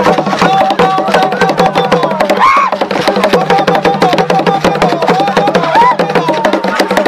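Fast Chewa Gule Wamkulu dance drumming, many quick strokes a second, with a chorus of voices singing over it.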